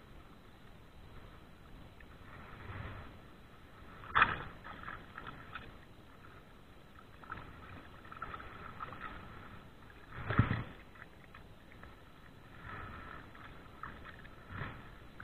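Water sloshing and splashing close to the microphone, with two sharp loud splashes or knocks, one about four seconds in and one about ten seconds in.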